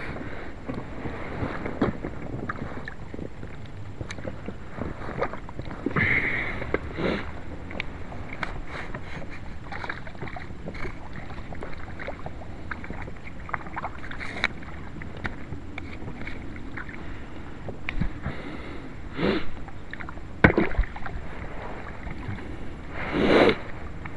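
Water sloshing and splashing right beside a small boat's side, over a steady rush of wind and handling noise on the microphone, with scattered sharp clicks and knocks. Several louder splashes stand out, one about six seconds in and the rest in the last few seconds.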